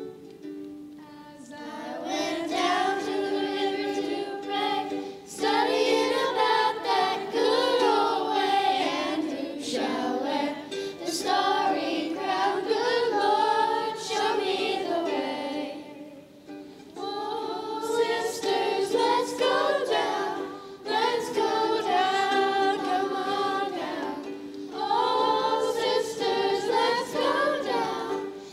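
A group of voices, children's among them, singing a song together in phrases with short breaks between them, over a light plucked-string accompaniment.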